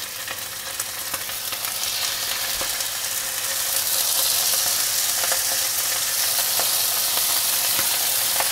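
Duck aiguillettes searing in hot duck fat in a frying pan: a steady sizzle with fine crackles that grows louder over the first few seconds as more strips are laid in, then holds steady.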